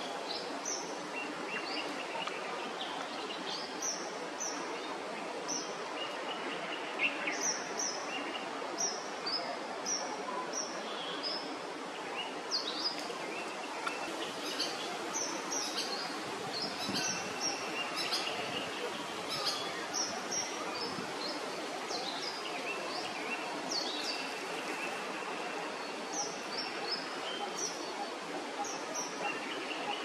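Many short, high, quick bird chirps scattered over a steady background hiss of ambient noise.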